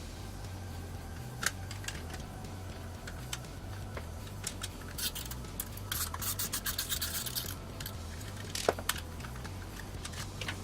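Small parts being handled: scattered light clicks and taps, a run of rapid scratchy clicking and rustling around the middle, and a sharper knock a couple of seconds before the end, over a steady low hum.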